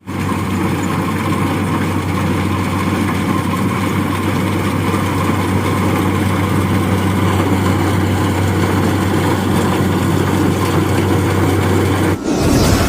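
Engine of a rice combine harvester running steadily with a low, even hum; it cuts off about a second before the end.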